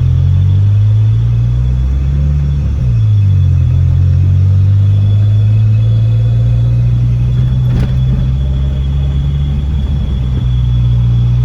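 Very deep bass notes booming from a car sound system, held for seconds at a time and stepping between pitches, with a downward slide about three seconds in.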